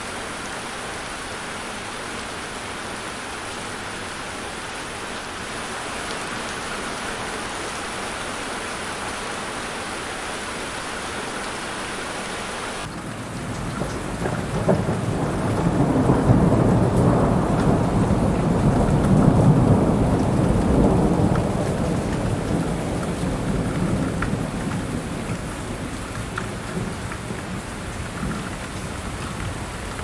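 Steady heavy rain hiss, which switches abruptly about a third of the way in to a heavier storm rain. In the storm rain a long low rumble of thunder swells up, peaks and slowly fades.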